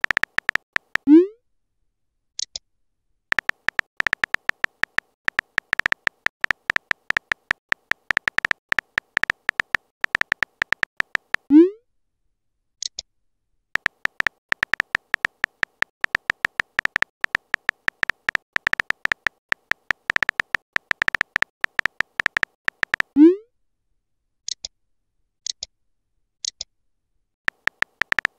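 Texting-app sound effects: fast runs of keyboard tap clicks, each a short beep, as messages are typed. The runs are broken three times by a loud rising swoop as a message is sent, each followed by one to three short high blips.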